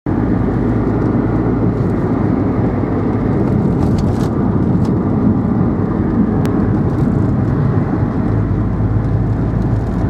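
Car driving along a road, heard from inside the cabin: a steady low rumble of engine and tyres with a constant engine hum.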